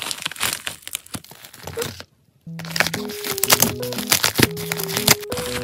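Crinkling and crackling of a padded bubble mailer being handled and opened, with many sharp clicks. A brief silent gap just past two seconds, then a light background melody plays over more crinkling.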